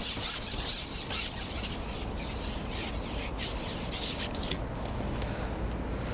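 Long carbon fishing pole being shipped back hand over hand after a roach is hooked: the pole slides and rubs in a run of irregular rasping strokes that stop about four and a half seconds in.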